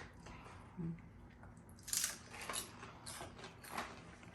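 Several short, sharp crackles from fried egg and sea salt potato chips and their bag, starting about two seconds in and coming roughly every half second.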